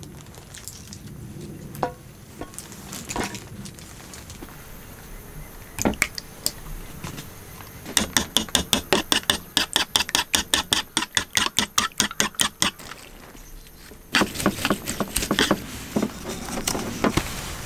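Cooking utensil sounds while making egg street toast: scattered clicks and knocks, then a rapid, even run of utensil taps, about five a second for some five seconds, and a denser clatter near the end.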